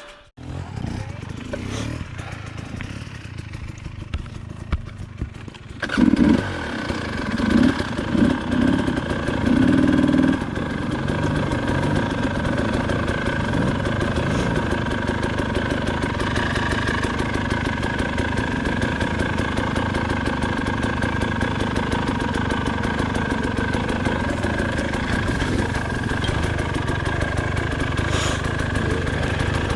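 KTM 300 XC-W two-stroke dirt bike engine: running low for the first six seconds, then louder with a few quick revs, then running steadily under way.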